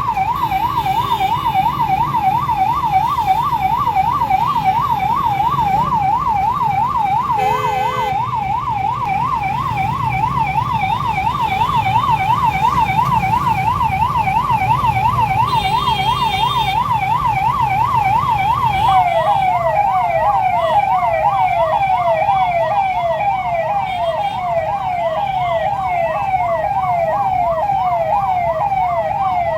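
Ambulance siren stuck in traffic, sounding continuously as a fast warble of about three cycles a second, which changes to a run of falling sweeps about two-thirds of the way through. Under it is the rumble of idling traffic, with two short horn honks.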